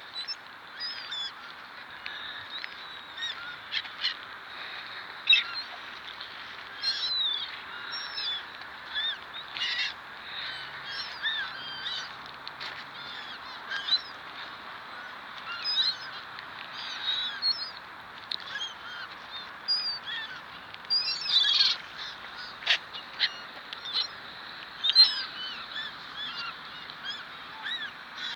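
A crowd of gulls calling at once: a dense chorus of many overlapping cries, with louder single calls standing out every second or two.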